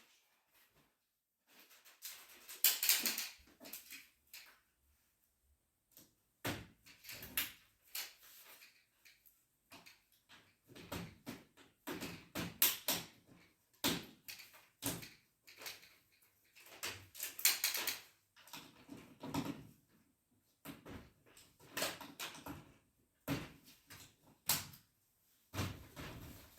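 Irregular knocks, clatters and rustles of things being handled, in short bursts with quiet gaps between.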